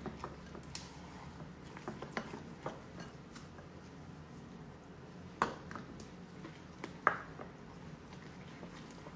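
Wooden spoon stirring thick pancake batter in a glass bowl: faint scraping with scattered light knocks of the spoon against the glass, and two sharper knocks about five and a half and seven seconds in.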